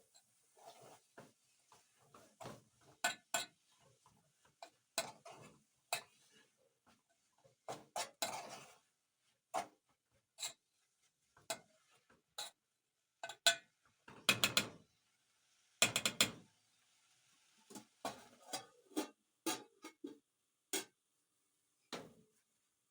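Kitchen utensils and cookware clinking and knocking at irregular intervals, with a few longer clattering stretches.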